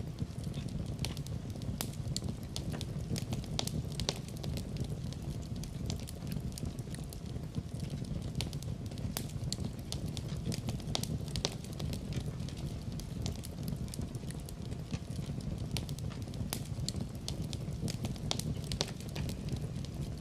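Fire in a fireplace crackling, with frequent sharp, irregular pops and snaps over a low, steady rumble.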